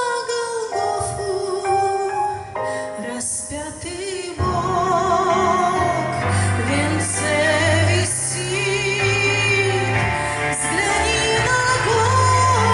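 Female singing of a Russian-language Christian song about the crucifixion, with instrumental accompaniment; the voice wavers with vibrato. About four seconds in, a fuller backing with a steady bass comes in.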